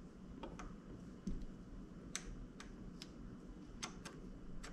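Faint, irregular small clicks and ticks as a brake lever's metal pivot pin and the lever are handled and fitted into a mountain-bike brake lever body by hand, about eight or nine clicks in all.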